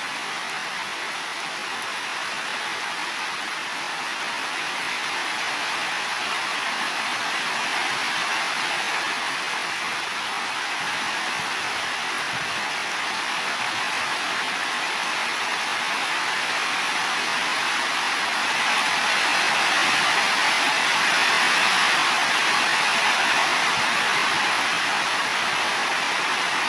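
Heavy rain falling on building roofs, a steady hiss that slowly grows louder and is heaviest about two-thirds of the way through.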